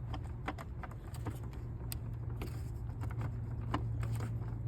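Scattered light plastic clicks and taps from a new upper radiator hose's clip-on fitting being pushed and worked into place on a BMW E46 radiator, over a steady low hum.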